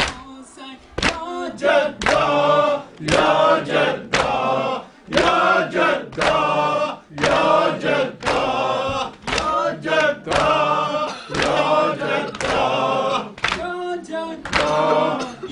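A crowd of mourners chanting a noha, a Shia lament, together in chorus, with sharp hand slaps of matam (chest-beating) keeping a steady beat under the singing.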